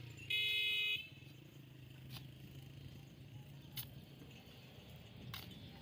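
A short, loud high-pitched tone near the start. Then spades scrape and scoop loose sand into jute sacks, with a few sharp clicks over a low steady hum.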